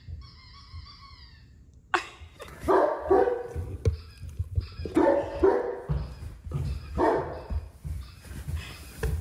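A mastiff barking repeatedly, about once a second, from about two seconds in, the way he barks at the PetSafe Ricochet toy's electronic squeaks he is unsure of. A faint high wavering squeak comes first.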